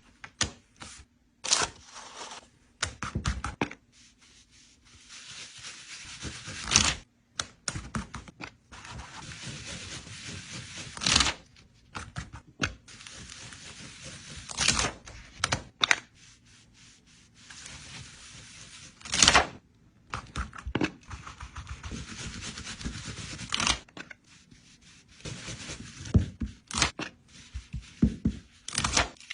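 Close-up handling of some material: stretches of scraping or tearing, several of them ending in a sharp snap, with scattered clicks and taps in between.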